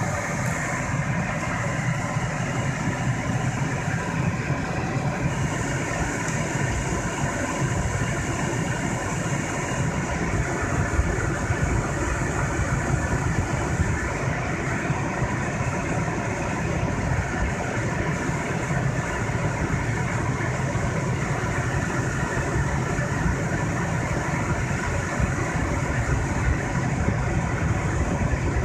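Suzuki Twin kei car running steadily: a constant low engine hum with a steady high hiss over it.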